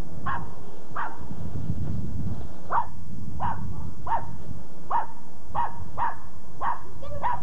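A dog barking over and over, about ten short barks at a steady pace of roughly one and a half a second, over a constant low rumble.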